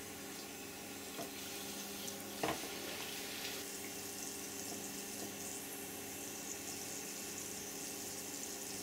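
Compressed air from a paintball HPA tank hissing out of leaks in a pressurised 3D-printed part, turning into a sharper, higher hiss about three and a half seconds in. A few light clicks. The leak comes through the printed plastic itself, not only past the O-rings.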